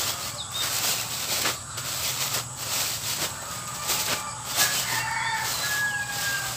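Thin plastic bag of duck feed being handled and opened by hand, crinkling in irregular bursts. Faint bird chirps in the background.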